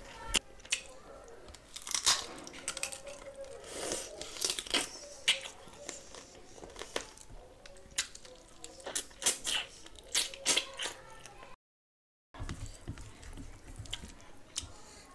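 Close-miked eating sounds: chewing and lip-smacking of hand-eaten chicken biryani, with many short, sharp clicks and the squish of rice being mixed by hand. The sound cuts out completely for under a second about three quarters of the way through.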